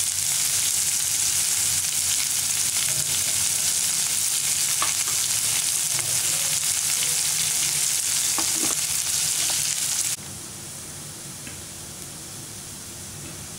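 Chopped onions, garlic, dried red chillies and curry leaves sizzling in hot oil in a nonstick frying pan, with a couple of faint knocks. The sizzle drops suddenly to a quieter level about ten seconds in.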